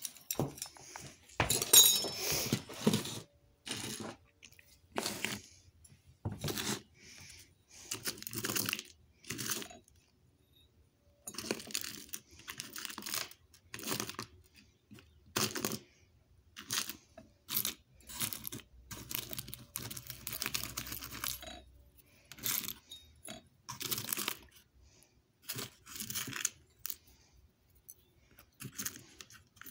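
Handling noise close to the microphone: irregular rustles, scrapes and clicks, each a second or less, coming in quick bunches with short gaps.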